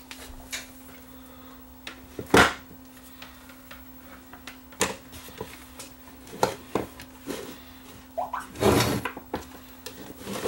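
Scattered knocks and clicks from tools and parts being handled on a workbench, the loudest a sharp knock about two seconds in and a longer clatter near the end, over a faint steady hum.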